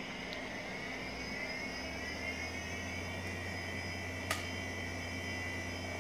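HP 712/60 workstation powering up: its early-1990s SCSI hard drive spins up with a whine that rises over the first couple of seconds and then holds steady over a low hum. A single sharp click comes about four seconds in.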